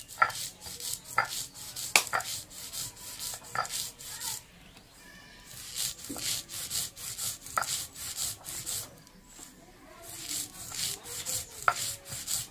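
Stone roller (nora) rubbed back and forth over roasted sesame seeds on a stone grinding slab (shil), a gritty scraping in repeated strokes, crushing the seeds coarsely. The strokes stop briefly twice, and a few sharper clicks of stone on stone stand out.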